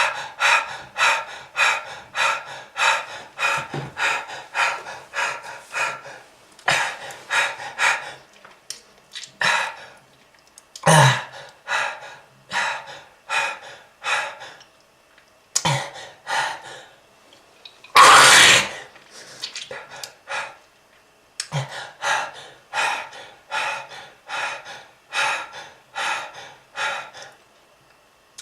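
A smoker's long coughing fit: short, harsh coughs and gasping breaths about two a second, broken by brief pauses, with a longer, louder hacking cough about eighteen seconds in.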